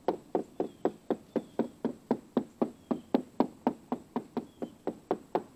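A small hammer tapping steadily along a wooden boat's hull planking, about four even taps a second, each with a short ring. The taps sound solid, the sign that the plank is still tight against the framing.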